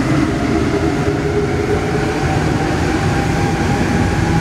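Alstom NS-16 rubber-tyred metro train running through a tunnel, heard from inside the driver's cab: a steady, loud running rumble with a constant motor whine.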